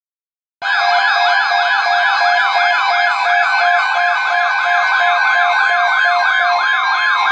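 Electronic Emergency Alert System alert sound, a loud siren-like wail whose pitch sweeps rapidly up and down, three to four times a second, over a steady tone. It starts abruptly under a second in and signals the broadcast of a severe thunderstorm watch.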